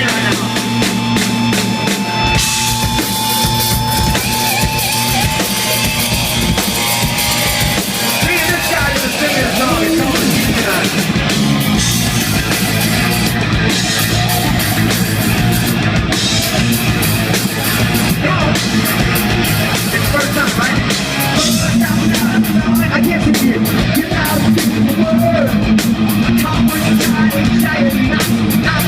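Hard rock band playing live: drum kit, electric guitars and bass, loud and continuous, getting a little louder about three quarters of the way through.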